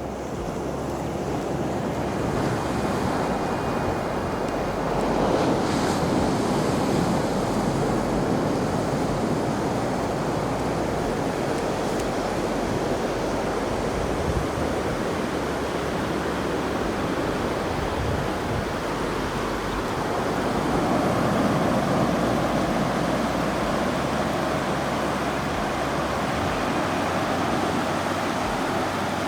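Ocean surf washing onto a sandy beach: a steady wash of breaking waves that swells louder twice.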